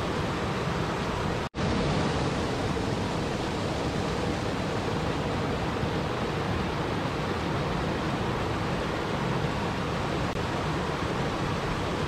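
Waterfall rushing steadily, a dense, even roar of falling water. About one and a half seconds in, the sound cuts out for a split second and then carries on unchanged.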